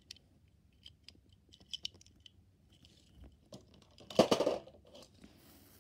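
Small clicks and taps of toy cars being handled, then a louder, brief scuffing noise about four seconds in.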